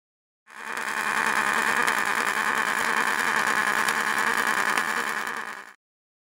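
Pulsed MIG welding arc on 4 mm aluminium at 100 A, with Migatronic's DuoPlus function at its fastest setting (1): a steady, crackling arc buzz with a quick flutter in its level. It starts about half a second in and cuts off abruptly near the end.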